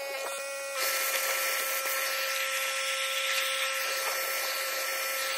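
Vacuum cleaner running with a steady motor whine, its hose nozzle worked over the truck's carpeted floor; a louder rush of air through the nozzle comes in about a second in and holds steady.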